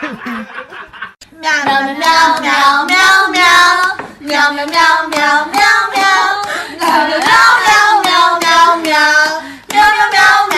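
A high voice singing a melody in short phrases, starting about a second in, with a brief break near the end.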